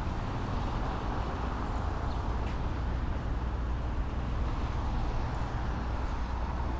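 Steady city traffic noise: a continuous rumble and hum of passing cars, with no single event standing out.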